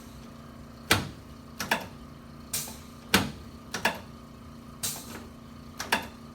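A series of sharp clicks, about one a second at uneven spacing, over a faint steady low hum.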